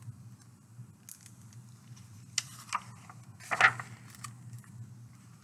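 Paper pages of a picture book rustling as they are handled and turned by hand: a few short crackles, the loudest about three and a half seconds in, over a faint steady room hum.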